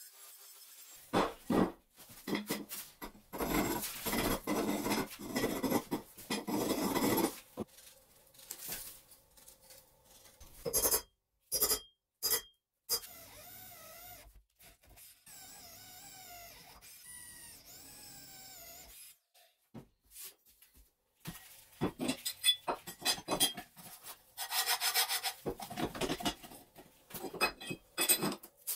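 Metalworking on steel: a run of rough rasping strokes, then a drill motor running with a wavering pitch as it bores a square steel tube, then more rasping and scraping strokes near the end.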